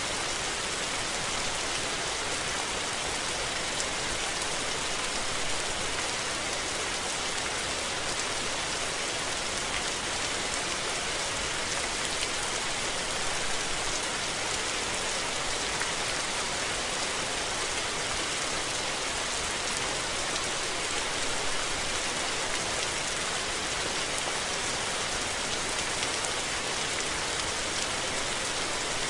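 Steady rain falling, an even, dense hiss of drops.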